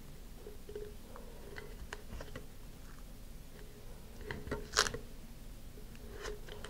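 Masking tape being wrapped around a plastic nose cone and pressed down by hand: soft crinkles and small clicks, with one brief louder rasp of tape pulled from the roll nearly five seconds in.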